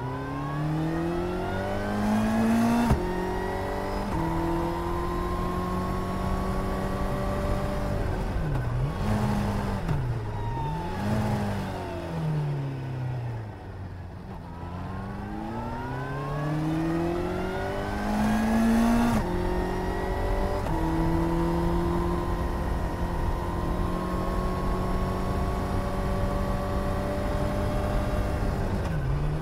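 Suzuki GSR 750's inline-four engine under way, heard from on the bike. The revs climb, then drop sharply at an upshift about three seconds in and run steady. They dip twice briefly and fall away to a low point about fourteen seconds in, then climb again to another upshift about nineteen seconds in and hold steady.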